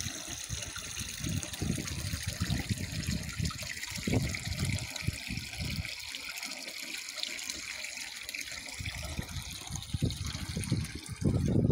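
Spring water pouring steadily from two pipe spouts in a concrete wall and splashing into the basin below. Irregular low rumbles on the microphone come and go over the first few seconds and again near the end.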